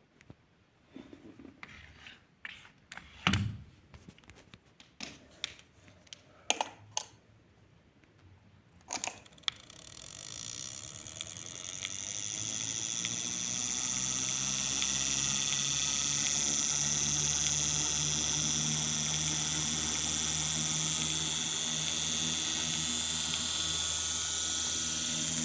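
Clicks and knocks of handling, then a click about nine seconds in as the 1920s L. Dallemagne desk fan's brushed motor is switched on. It spins up over a few seconds with rising tones, then runs at one steady speed with a hum and loud noise from its carbon brushes on a dirty commutator.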